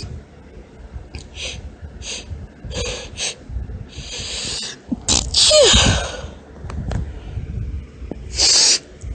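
Woman's high-pitched sneezes with hitching. A string of short catching breaths and a drawn-in breath lead to a loud sneeze with a falling voiced tail about five seconds in. A second, shorter sneeze follows near the end.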